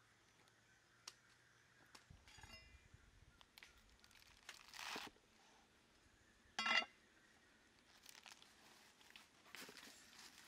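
Leafy greens being cut with a cleaver on a wooden chopping block and gathered up: a few light knocks and soft crunching rustles. A short harsh bird call about two-thirds of the way through is the loudest sound.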